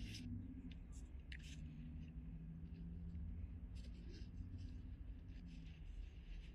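Soft, faint rustling of a fleece hoodie with a few short clicks as a puppy shifts inside it, over a low steady hum.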